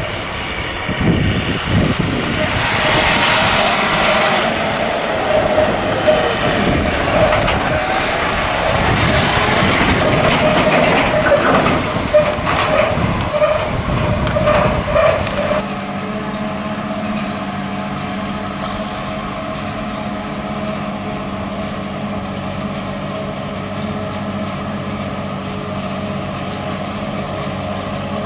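Farm tractors' diesel engines working during corn silage harvesting. The first half is loud clattering and rushing machine noise with a held whine. About halfway through it switches abruptly to a steadier, even engine drone.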